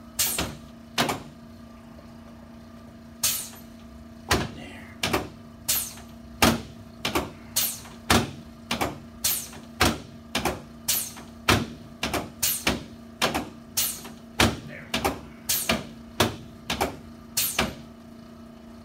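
A long run of sharp clicks during a chiropractic adjustment, two near the start, then after a short pause a regular series of about one and a half a second, over a steady low hum.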